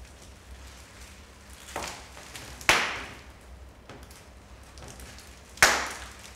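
Three sharp knocks, each ringing out briefly in a reverberant hall: a lighter one about two seconds in, then two loud ones about three seconds apart.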